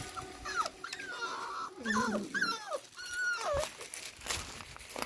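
Cocker spaniel puppies whining: a run of short, high whines and yelps, several sliding down in pitch, that stops about three and a half seconds in.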